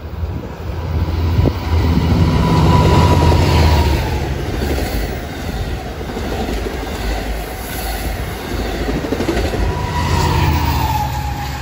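Long Island Rail Road train of bilevel coaches passing close by at speed: a heavy rumble with the clickety-clack of wheels over the rail joints. It is loudest about two to four seconds in, and swells again near the end as the locomotive at the rear goes by.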